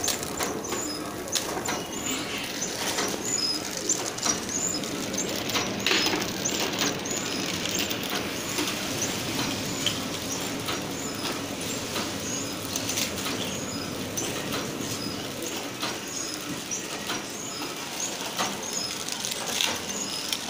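Mini table-top flow wrap packing machine running, a continuous clatter of clicks with short high squeaks.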